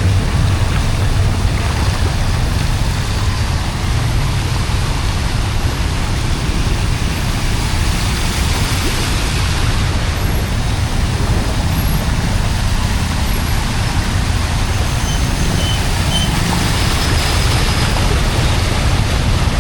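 Floodwater rushing steadily into a street drain, a constant loud noise heaviest in the low end.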